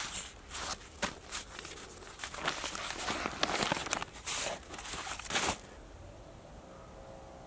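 Decades-old newspaper pages rustling and crinkling as they are handled and turned, in quick irregular runs of crackling that stop a little over halfway through.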